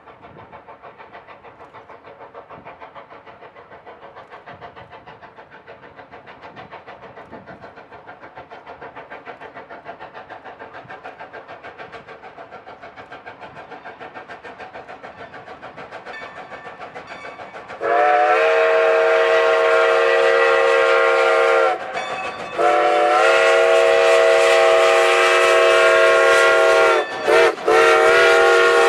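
Two steam locomotives working a freight train, their exhaust beating in a rapid, steady rhythm that grows louder as they approach. About two-thirds of the way in, a loud chime-toned steam whistle blows long, long, short, long, the grade-crossing signal.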